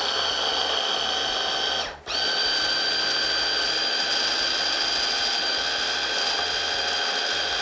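Hand blender motor running on its chopper-bowl attachment, chopping a thick tofu mixture into a cream: a steady high whine that stops briefly about two seconds in, then runs on again.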